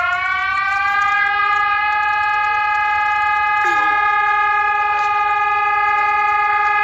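A loud emergency-alert alarm tone that slides up in pitch over its first second, then holds one steady pitch for about six seconds and cuts off suddenly.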